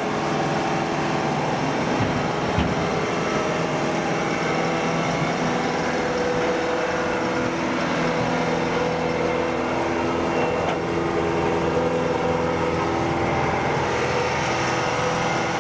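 Kubota DC105 combine harvester's diesel engine running steadily under load as the machine climbs aboard, with a single knock about two and a half seconds in.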